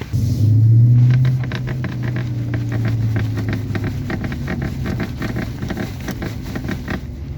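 Driver's seat of a 2016 Dodge Challenger creaking in a quick, irregular run of small creaks and clicks. Under it is a low rumble of the car in the cabin, loudest for about the first second and a half.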